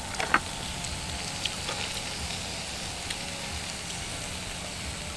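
Meat and broth in a moo kratha grill pan over a charcoal stove, sizzling steadily. There are a few light clicks of chopsticks and metal tongs against the pan.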